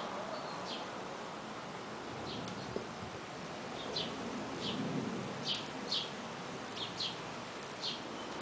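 A small bird chirping: short, high chirps repeated irregularly, about ten in all, over a steady hiss.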